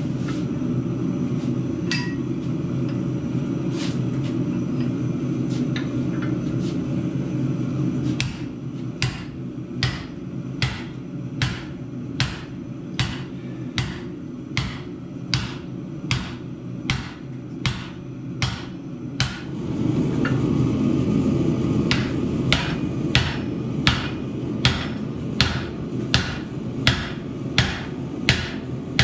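Hand hammer striking a steel drift driven through the hot eye of a forged axe head resting on a swage block, stretching the eye open. The blows are sharp and metallic: a few widely spaced at first, then a steady stroke a bit faster than once a second. A steady low machine hum runs under the blows.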